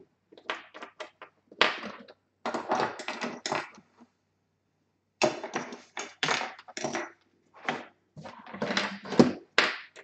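Hand tools and screwdrivers being picked through on a tabletop, clattering and knocking against each other and the table in irregular bursts, with a brief pause about four seconds in.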